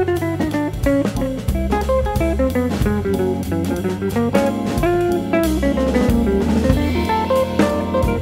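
Background music: jazzy guitar over a bass line and drum kit with a steady beat.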